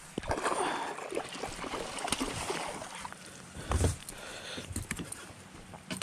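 A hooked bass thrashing and splashing at the surface beside a bass boat, with water sloshing and scattered clicks of rod and line handling. A dull thump about four seconds in is the loudest sound.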